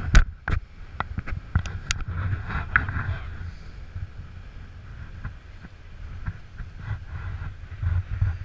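A scale RC rock crawler climbing bare rock, with a quick series of sharp clicks and knocks from its tires and chassis on the stone in the first two seconds and a few fainter ones later. Underneath is a steady low rumble of wind on the microphone.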